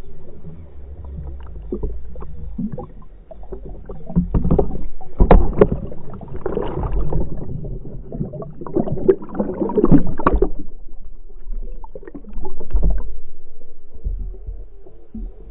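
Water churning and sloshing heard underwater, with many irregular knocks and rustles, as a pike thrashes through a weed bed with a lure in its mouth. The knocking is busiest about four to six seconds in and again around ten seconds.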